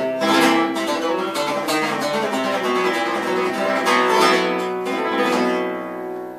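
Spanish guitar played solo, picking the melody of a comparsa pasodoble's punteo with several strummed chords. Near the end a last chord rings and fades.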